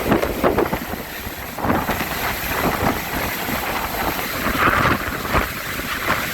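Helicopter rotor and engine noise with heavy wind buffeting the microphone, from a helicopter working on a concrete pour.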